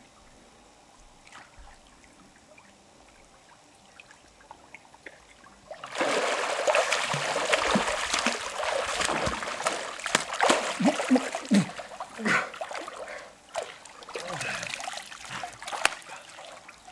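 Pool water splashing from a swimmer's strokes and kicks. It is faint for the first several seconds, then about six seconds in it turns loud, with many uneven splashes.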